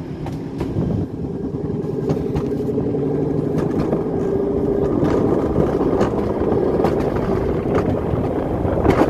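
Alpine mountain coaster cart running down its steel monorail track: a steady rumble of wheels on rail that grows louder over the first few seconds as the cart gathers speed. There is a sharp click near the end.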